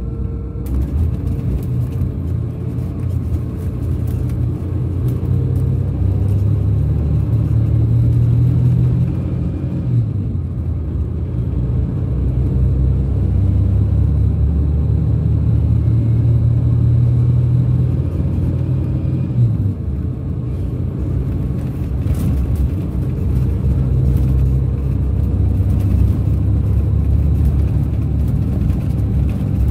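Rear-mounted Scania DC13 inline-six diesel of a Scania K400 coach pulling under way, heard from inside the coach as a deep, steady drone. Its note climbs and drops back twice, about ten and twenty seconds in.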